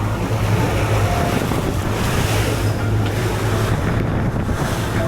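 Small fishing boat under way at trolling speed on open ocean: a steady low engine drone under wind buffeting the microphone and water rushing past the hull.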